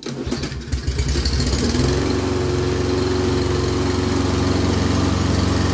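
Briggs & Stratton 163cc lawn mower engine starting and running steadily for a few seconds. It runs only briefly: it has spark, so the no-start is a fuel problem in the carburetor.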